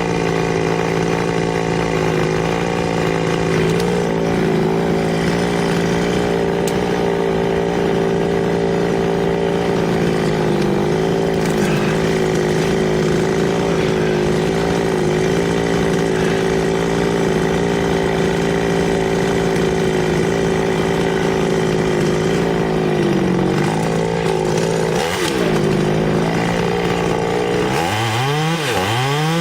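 Chainsaw running at a steady high speed. Near the end its pitch drops and swoops back up several times as the throttle is let off and opened again.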